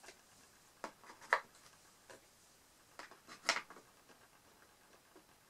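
Light, scattered taps and clicks, about six in all with two louder ones, as small laser-cut wooden earring blanks are picked up and set down one by one on a film-covered cardboard box.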